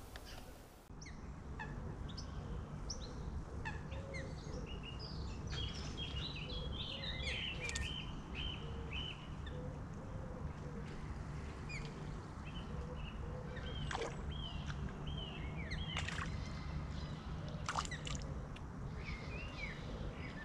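Small birds singing, a busy run of short chirps and slurred whistles, with a few sharp clicks scattered through and a steady low rumble underneath.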